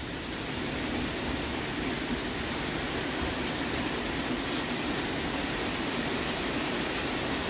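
Heavy rain driven by strong wind in a thunderstorm: a steady rushing hiss with no breaks.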